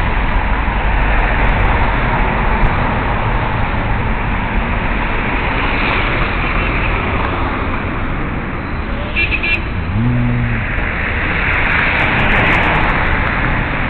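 City street traffic: cars driving past, a steady rumble and hiss of engines and tyres.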